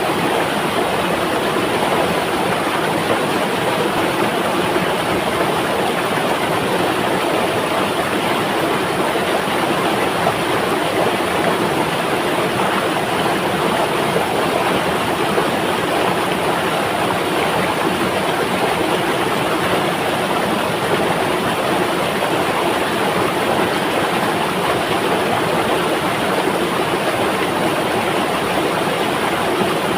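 River water flowing, a steady, even sound with no change in level.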